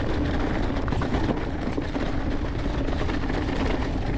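Mountain bike rolling fast downhill over a singletrack trail covered in wet leaves and rocks, the tyres churning through the leaves and the bike rattling over the bumps. Wind buffets the camera microphone, and a faint steady hum runs underneath.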